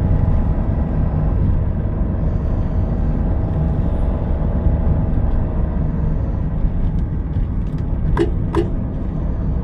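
In-cabin sound of a 2022 Daihatsu Rocky's 1.2-litre three-cylinder engine pulling steadily up a climb, with tyre and road rumble. Two short sharp sounds come near the end.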